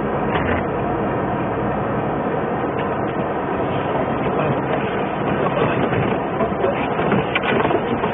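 Steady engine and tyre noise heard from inside a vehicle driving at highway speed on a snow-covered road, with a few light rattles near the end.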